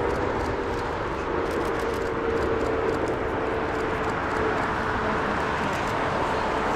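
Jet airliner engine noise: a steady rush with a held humming tone.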